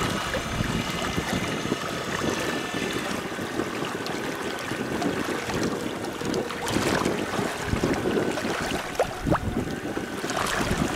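Water swishing and splashing against the kayak's hull and around a striped bass held alongside in the water to revive it, with a few sharper splashes near the end. A faint steady high whine from the Torqeedo electric outboard pushing the kayak slowly forward fades out about four seconds in.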